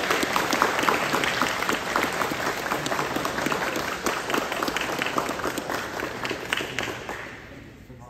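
Audience applauding, many hands clapping together, dying away near the end.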